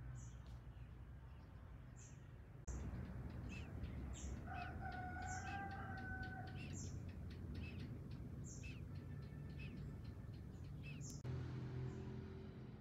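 A rooster crowing once, a held call of about two seconds near the middle, over short high chirps repeating about once a second.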